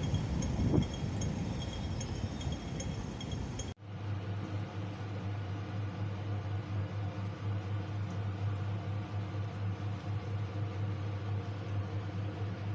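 City street ambience: a low traffic rumble with faint high clinks and one brief louder noise under a second in. It cuts off abruptly about four seconds in and gives way to a steady low mechanical hum, like a kitchen appliance or fan running.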